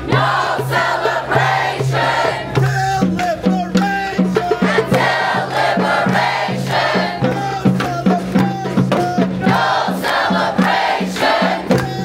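A crowd of protesters chanting slogans in unison and in rhythm, over a steady low beat.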